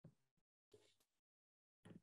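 Near silence, broken only by a few very faint, brief scraps of sound.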